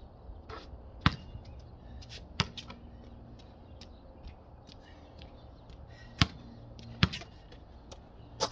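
A basketball bouncing on a concrete court: four sharp thumps spread unevenly, one about a second in, another a second or so later, and two close together later on, with fainter ticks between.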